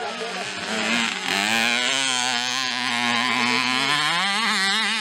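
Mini motocross bike engine revving hard, its pitch climbing about a second in and holding high, then wavering near the end.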